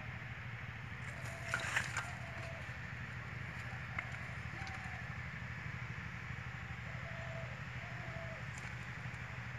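Live stinging catfish handled into a steel bowl: a brief rattling clatter of clicks about a second and a half in and a single click near four seconds, over a steady low hum.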